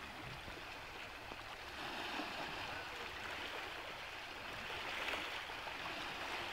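Small waves lapping and washing over the stones and rock slabs of a lake-like sea shore: a steady wash that swells a little twice.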